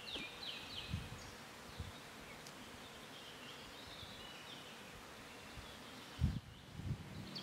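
Riverside outdoor ambience with short, high chirping calls coming and going, and a dull low thump about six seconds in.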